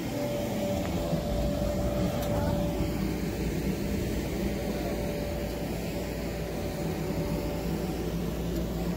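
Electric blower fan of an inflatable bounce house running steadily: a constant hum with one steady tone over a low rumble.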